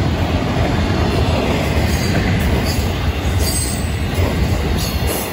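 Florida East Coast Railway freight train passing at close range, its intermodal well cars and trailer-carrying flatcars rumbling and clattering steadily over the rails. A few short, high wheel squeals come through about halfway through.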